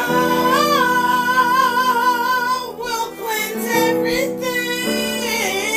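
A song: a woman singing long held, wavering notes with vibrato over a steady backing of sustained chords that change every second or so.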